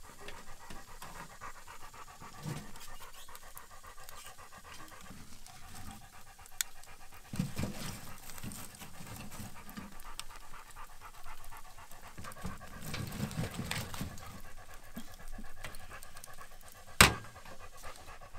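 Dog panting rapidly and steadily, with a single sharp knock near the end.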